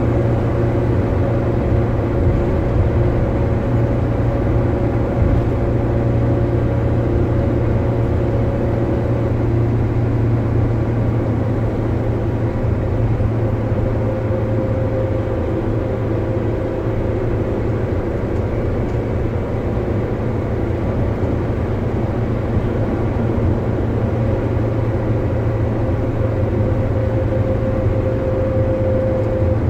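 Steady engine drone and tyre noise heard inside a Daihatsu Gran Max cabin cruising at highway speed. The engine's note shifts slightly about a third of the way in.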